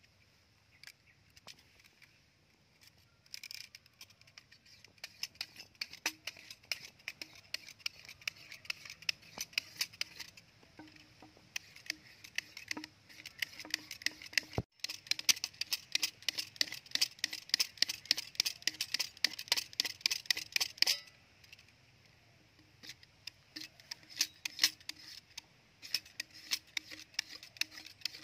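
A utility knife blade scraping and shaving the green skin off a bamboo tube in many short, quick strokes. The scratching comes in fast runs, with a short pause about three-quarters of the way through.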